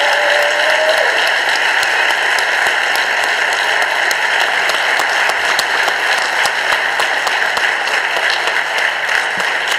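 Audience applauding: dense, steady clapping that tapers slightly near the end.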